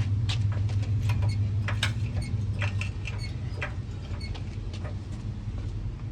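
A jack being worked under the truck makes irregular light clicks and taps, clustered in the first few seconds. Underneath runs a low steady hum that fades about three seconds in.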